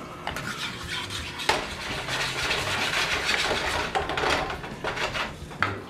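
Wooden spoon stirring and scraping a bubbling butter and brown sugar sauce in a metal skillet, the sauce sizzling under a run of small scrapes and knocks. Two sharper knocks of the spoon against the pan, one about a second and a half in and one near the end.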